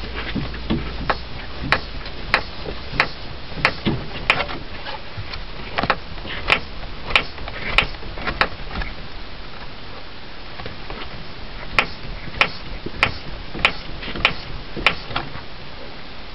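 Daewoo Lanos suspension knocking as the car body is rocked: sharp knocks about every two-thirds of a second, in three runs of five or six with pauses between. The knock comes from a spot weld that has torn loose next to the anti-roll bar bracket.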